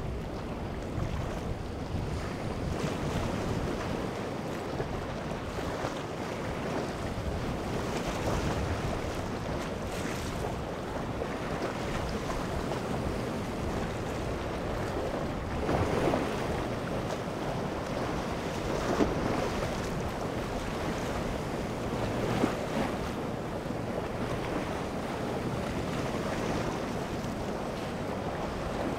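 Surf washing and breaking against jetty rocks, with wind rushing on the microphone. Now and then a louder wave surges, three times in the second half.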